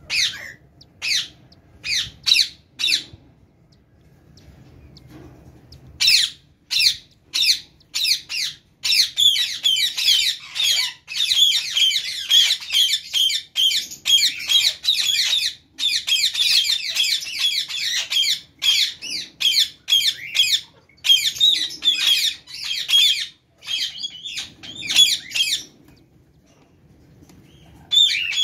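Pet cockatiels squawking in short, sharp, repeated calls. They come singly at first, then crowd together into continuous overlapping squawking for several seconds, and thin out again toward the end.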